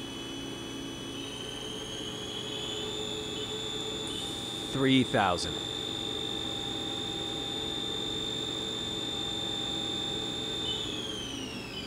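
Main spindle of a Haas DS-30SS CNC lathe running at 2,500 RPM: a steady high-pitched whine over a low machine hum, rising slightly in pitch over the first couple of seconds and falling in pitch near the end as the spindle slows. About five seconds in, a brief loud sound sweeps downward in pitch.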